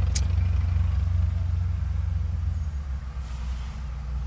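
Steady low rumble of an idling vehicle engine, with fine even pulsing, easing off about three seconds in. A short sharp click sounds at the start.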